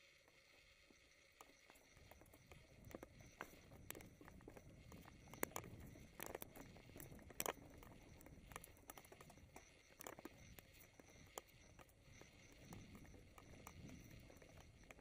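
Faint sound of a mountain bike rolling over a dirt and root trail: a low rumble of tyres and wind that comes in about a second and a half in, with scattered clicks and knocks as the bike rattles over bumps.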